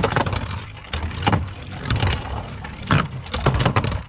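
World Spriggan and Hyperion Beyblade spinning tops whirring in a plastic stadium, with sharp clacks each time they collide, several times at an irregular pace.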